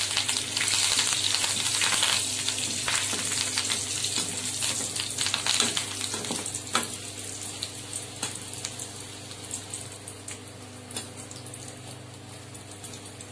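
Curry leaves sizzling in hot oil in a kadai, stirred with a metal spatula and skimmer that click against the pan now and then. The sizzle fades steadily as the oil cools with the stove off.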